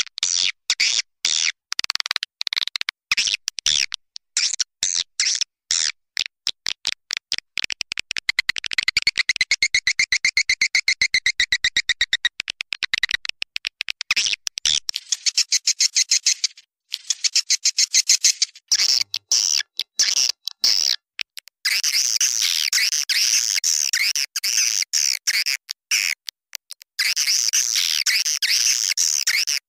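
Swiftlet lure call (suara walet panggil), the recording played to draw swiftlets into a nesting house: rapid trains of sharp clicks and high twittering chirps with brief breaks, the twittering densest in the last several seconds.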